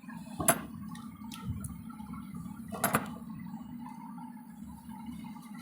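Screwdriver work on a fan's metal rear cover: small clicks and knocks as the cover's screws are driven tight, two sharper knocks about half a second and three seconds in, over a steady low hum.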